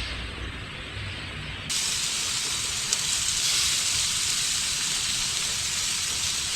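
Pork barbecue skewers sizzling on a hot grill. The sizzle jumps suddenly louder and brighter about two seconds in, then holds steady.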